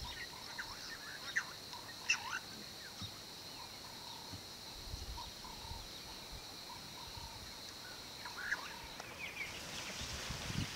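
Savanna ambience: a steady high insect drone with scattered short bird calls and chirps. About nine seconds in, the drone stops and a different, hissier background with more chirps takes over.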